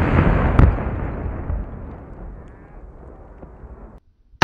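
Rumble of an explosive blast dying away over about four seconds, with one sharp crack about half a second in; the sound cuts off abruptly near the end.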